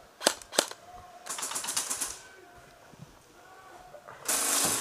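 Airsoft guns firing: two sharp single shots, then a short rapid rattle of shots about a second in, and a louder, denser burst of rapid fire near the end.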